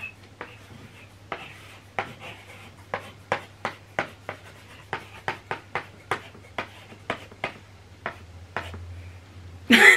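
Chalk writing on a small chalkboard: a run of short, sharp ticks and scratches, two or three a second, as the chalk strikes and drags across the board. The strokes stop about 8 seconds in, and a voice begins near the end.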